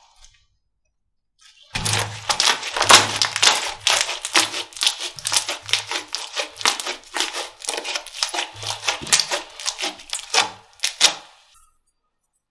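Slime being squeezed and pressed by hand, giving a dense run of rapid crackling clicks with soft low thuds. It starts about two seconds in and stops about a second before the end.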